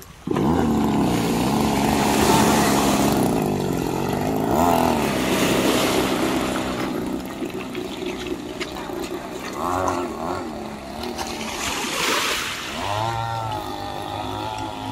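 Two-stroke gasoline engine of an RC gas boat running at speed, its pitch rising and falling repeatedly as the throttle is worked.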